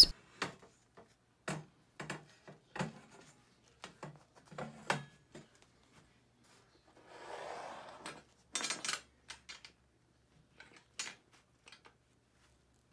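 Aluminium frame extrusions being handled and set down on a wooden board: scattered light knocks and taps, a scraping slide about seven seconds in, then a short metallic clatter about a second later.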